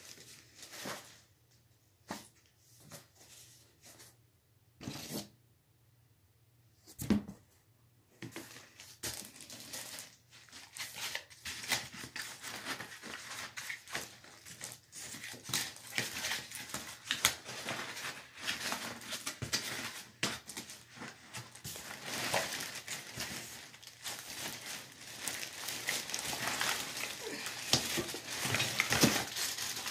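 Clear plastic wrap and a cardboard box being handled while a machine is unpacked: a few knocks in the first seconds, the sharpest about seven seconds in, then continuous crinkling and rustling of the plastic from about eight seconds in.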